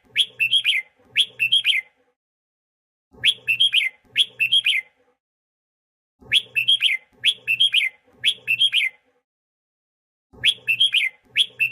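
Red-whiskered bulbul singing: short, bright warbled phrases, each under a second long, given in groups of two or three with silent pauses between. The same phrase repeats nearly unchanged.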